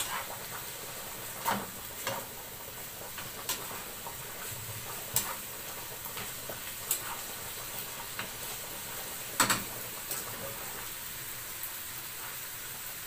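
Bacon frying in a pan with a steady sizzle, and a utensil clicking and scraping against the pan or pot a few times, loudest about nine and a half seconds in.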